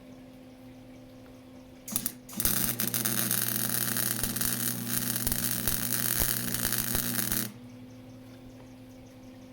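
Welding arc struck briefly, then after a short break held for about five seconds as a steady crackling sizzle that stops abruptly. A steady low electrical hum runs underneath.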